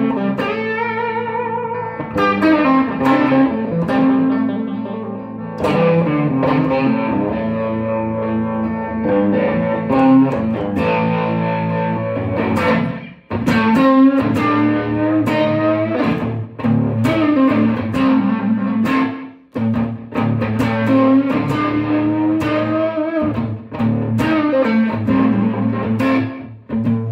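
Electric guitar, a sunburst Stratocaster-style instrument, played in blues phrases and chords, with short breaks about 13 and 19 seconds in.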